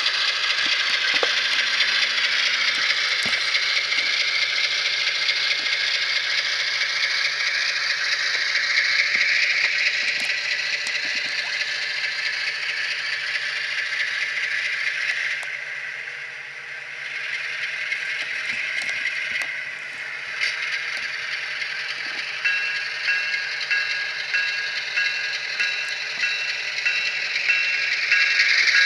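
Model GE Gevo diesel locomotive running on track, its SoundTraxx Tsunami decoder playing the diesel engine sound through the onboard speaker over the rattle of its wheels on the rails. The engine sound dips briefly a little past the middle.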